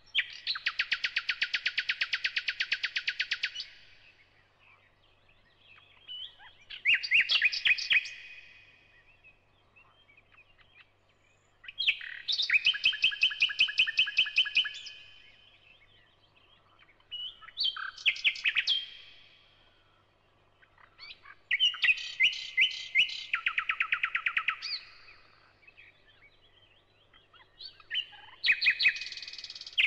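A songbird singing in bouts of rapid, high trills a few seconds long, the trills stepping from one pitch to another, with pauses of a few seconds between bouts.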